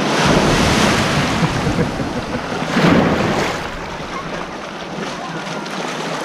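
Small waves breaking and washing up the shallows, swelling loudest at the start and again about three seconds in, with wind rumbling on the microphone.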